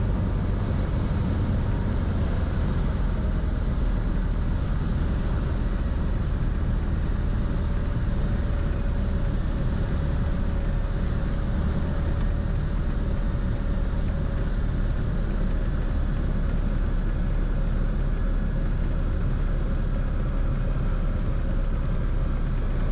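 Steady cabin drone of a Cessna 182's piston engine and propeller, with airflow noise. A faint steady hum joins it for several seconds in the middle.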